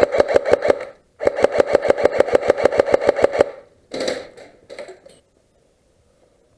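CYMA AKM airsoft electric gun firing on full auto: two bursts of rapid, evenly spaced shots at about eleven a second, the first stopping about a second in and the second running on for a little over two seconds. Two short, noisier sounds follow near four and five seconds in.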